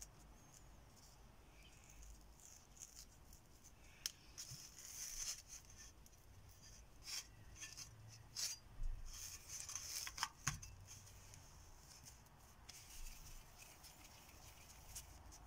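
Faint rubbing and rustling of hands rolling soft badusha dough into small balls and pressing a hole through the middle, with a few light clicking taps.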